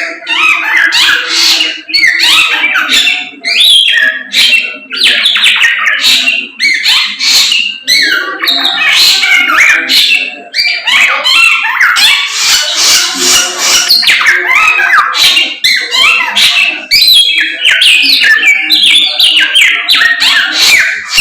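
Samyong songbird singing loudly and continuously in rapid, varied phrases of quick whistled and gliding notes: the full, vigorous song that keepers call "gacor".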